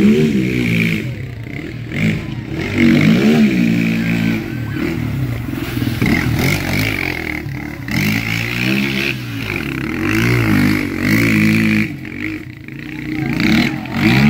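Sport ATV engine revving up and down over and over as the quad is throttled through tight turns around a tire on dirt.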